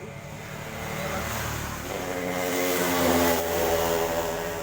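A motor vehicle driving past, its engine and tyre noise growing louder to a peak about three seconds in, then fading away.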